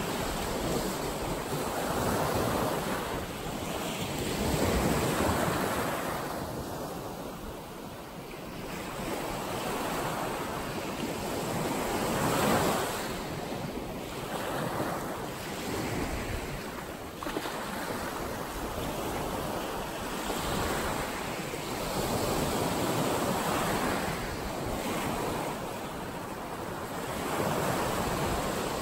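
Small waves breaking and washing up a sandy beach: the hiss of the surf swells and fades every few seconds as each wave comes in and draws back.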